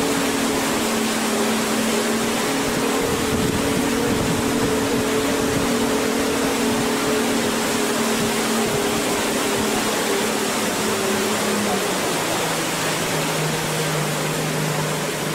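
A tour boat's engine drones under a steady rushing noise of wind and water. Its hum sinks slowly and drops noticeably lower about twelve seconds in.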